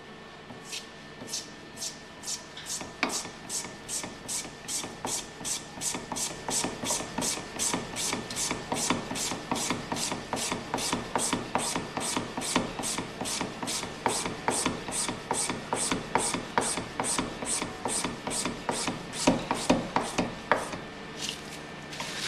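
Hand gouger shaving bagpipe reed cane: the blade carriage is pushed back and forth along its rails, and each pass makes a short scrape. The strokes start slowly, then settle at about two to three a second, and stop just before the end.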